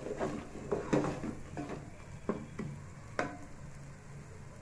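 Wooden spatula stirring and scraping a thick tomato masala in a metal pot as it fries, with a light sizzle under the strokes. A quick run of knocks and scrapes against the pot that thins out a little over three seconds in.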